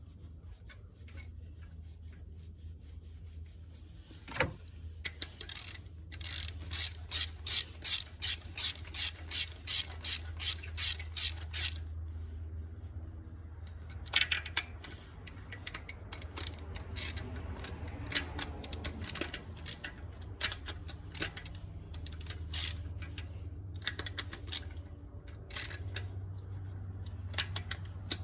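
Ratchet wrench clicking as it turns a spark plug socket, in a steady run of about two clicks a second, then in irregular short strokes.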